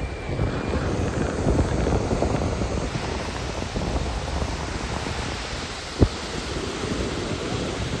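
Waves breaking in the surf, with strong wind rumbling on the microphone. A single short, sharp thump about six seconds in.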